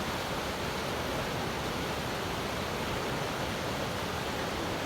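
River water rushing, a steady even noise with no change in level.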